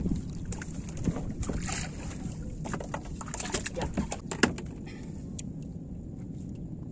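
Fishing net being hauled aboard a small wooden fishing boat: a quick run of sharp knocks, taps and splashes that thins out about four and a half seconds in, over a steady low rumble.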